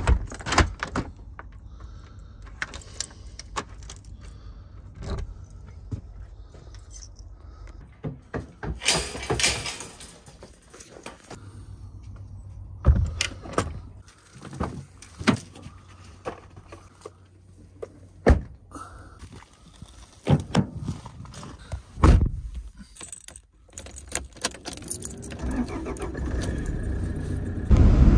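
Keys jangling and a uPVC front door's lock and handle clicking as it is locked, then a car door handle pulled and the car door opening and shutting, a string of separate clicks and knocks. A steady low sound builds up near the end.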